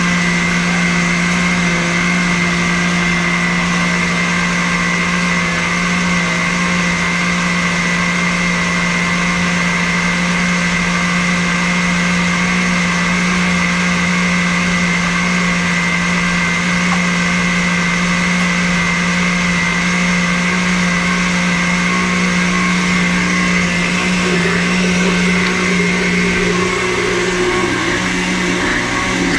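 Countertop blender motor running steadily, blending a liquid mango smoothie. Near the end the tone shifts as kale leaves are pushed in through the lid opening.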